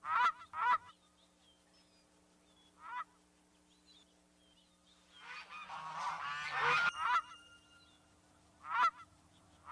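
Geese honking: a quick pair of honks at the start, single honks around three seconds in and near the end, and a burst of several overlapping honks in the middle. Faint small bird chirps sound between the honks.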